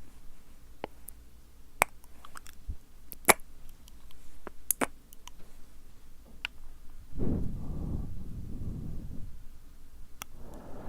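Close-miked ASMR mouth sounds: a scattering of wet tongue and lip clicks. These are followed by two stretches of breath blown straight into the microphone (ear blowing), about seven seconds in and again near the end.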